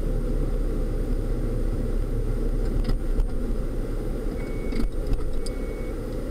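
Steady low rumble of road and engine noise inside a moving minivan's cabin, with a few light clicks and rattles.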